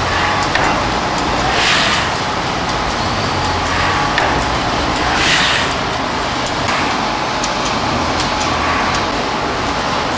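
Horizontal veneer slicer running, a steady mechanical drone with louder hissing swishes that recur every few seconds.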